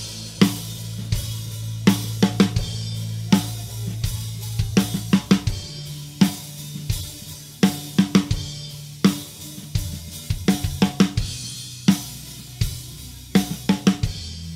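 Recorded dangdut band tracks played back for a virtual soundcheck: drum and cymbal hits in uneven clusters over held bass notes, the bass note changing about six seconds in.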